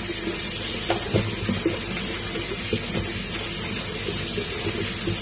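Kitchen tap running into a plastic basin of watercress while a hand swishes the leaves through the water, with a few light knocks in the first three seconds.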